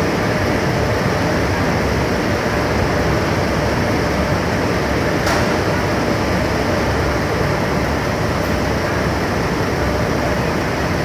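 Steady, loud machinery noise, with a single sharp click about five seconds in.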